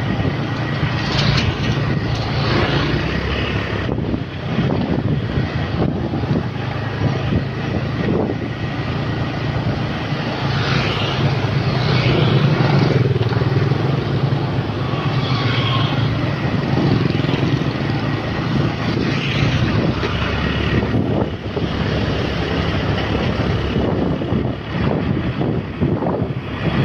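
Wind rushing over the microphone and the steady running of an engine, recorded from a motorbike riding in traffic.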